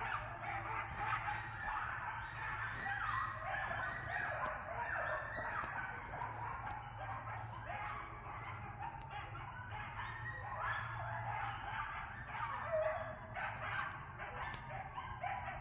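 A pack of coyotes yipping and howling together: many overlapping wavering, sliding calls, with a steady low hum underneath.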